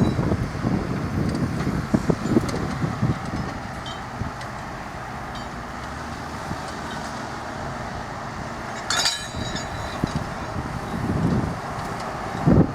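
Case tractor engines running steadily under ploughing load, with wind buffeting the microphone in gusts at the start and near the end. One sharp clink about nine seconds in.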